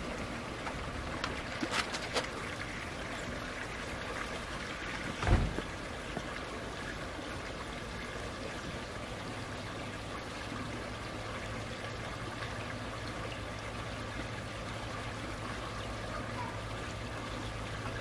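Water trickling and running steadily as the garden pond drains. There is a single low thump about five seconds in, and a faint low hum sets in partway through.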